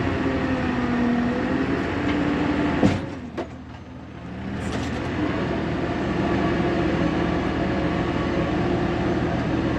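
1999 Fermec TLK760 backhoe's diesel engine running under load, heard from inside the closed cab over the steady hiss of the cab's AC fan. There is a knock about three seconds in, then the engine drops back for a second or two and comes up to a steady level again.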